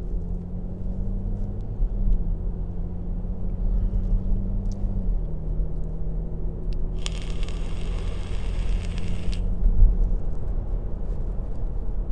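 Car engine and road noise heard from inside the cabin while driving, a steady low rumble whose engine note steps down twice. A hiss rises over it for about two seconds past the middle.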